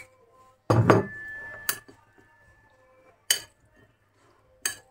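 Cutlery and dishes clinking: a heavy knock about a second in that leaves a brief ringing tone, then three more single sharp clinks about a second and a half apart.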